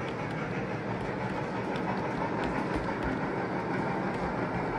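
G scale Aristocraft Union Pacific heavyweight passenger cars rolling past on the track: a steady rumble of metal wheels on rails, with light clicks at the rail joints.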